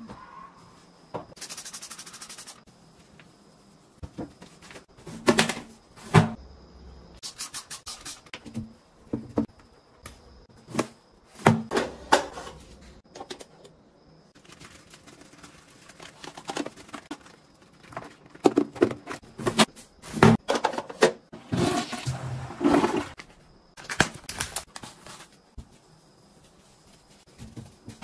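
Toilet cleaning up close: irregular clicks, knocks and thunks as the toilet lid and a long-handled toilet brush are handled, with short spells of scrubbing and wiping.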